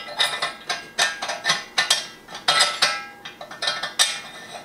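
Metal end ring being fitted and screwed onto the head of a metal meat grinder attachment: irregular metal-on-metal clicks and scrapes, about three a second, each with a short ringing.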